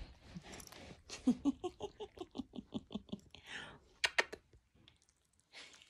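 A woman's voice in a quick string of short soft giggles, about five a second. About four seconds in come a few sharp smacking clicks.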